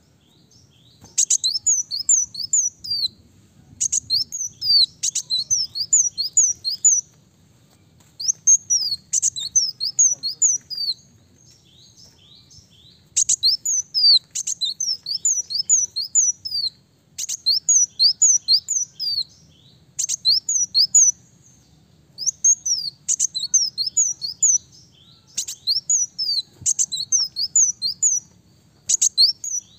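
Sunbird (kolibri daun) singing: repeated quick runs of high, downward-sweeping notes, each run lasting one to three seconds, with short pauses between.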